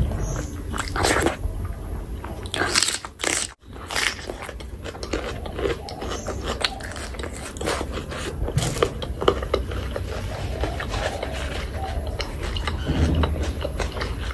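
Close-miked eating sounds: fingers scraping rice and curry across a steel plate, with chewing and wet finger-licking clicks.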